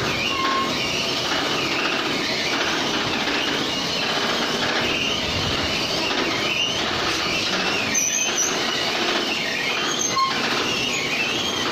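Automatic wall-rendering machine running as it plasters the wall: a steady mechanical noise with a wavering high squeal that rises and falls, and a few brief short tones.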